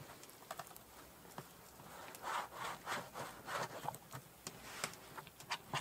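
Plastic cup pressed and twisted down through soft bannock dough onto a flour-dusted metal pan, cutting out rounds: faint rubbing and scraping with a few light taps, busiest about two to four seconds in.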